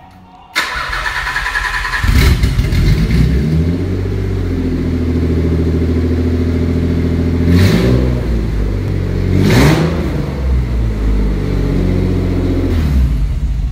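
Nissan 300ZX (Z32) 3.0-litre V6 running on a catless exhaust, its catalytic converters removed. After a short noisy start the engine settles into a steady run about two seconds in and is revved briefly twice, near the middle and again about two seconds later.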